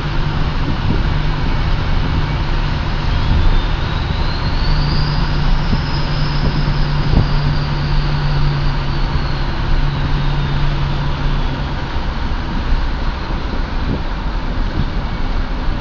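2007 Ford F-250's 6.0 Powerstroke V8 turbo-diesel, fitted with a 10-vane 2003 turbocharger, running on the road: a thin turbo whistle rises in pitch about three seconds in, peaks around six seconds, then slowly falls away, over a steady engine drone and road noise.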